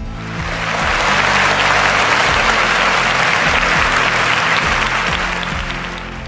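Audience applause that swells up in the first second, holds steady, then dies away near the end, over background music.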